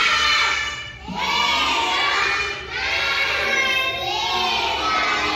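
A group of young children singing together, their voices holding long drawn-out notes.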